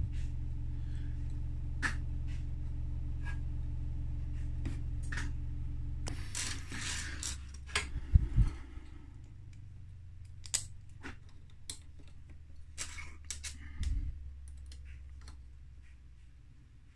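Small plastic clicks and taps as a hotend fan is handled and screwed onto a 3D printer's hotend, with a brief rustle and two dull knocks, the first about halfway through and the second near the end. Under them a steady low hum fades away.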